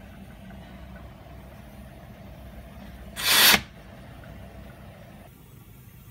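Pressure safety valve briefly opened by hand in a manual test, giving one short, loud hiss of released pressure about three seconds in, over a steady low hum.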